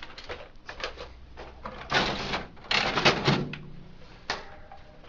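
Paper trays being slid out of a Xerox Phaser 4500/4510 printer: plastic scraping and rattling in two longer pulls about two and three seconds in, with a sharp knock a little after four seconds and smaller clicks between.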